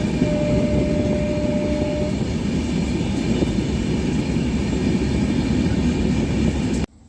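Passenger train running with a steady, heavy rumble. A single steady tone is held for about two seconds near the start. The sound cuts off suddenly near the end.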